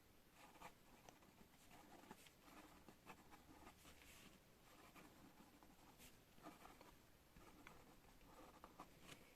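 Pen writing on paper: faint scratchy strokes and small ticks in irregular runs, as words are written out by hand.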